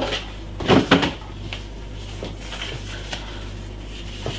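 A single short knock about a second in, then a few faint ticks over a low steady hum.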